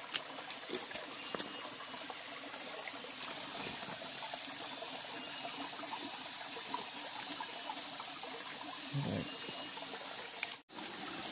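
River water running steadily, with a few faint clicks; the sound briefly cuts out near the end.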